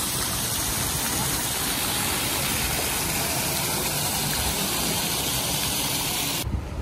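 Steady rushing hiss of water spraying and splashing from a pool's water-play sprayers and fountains, cutting off abruptly near the end.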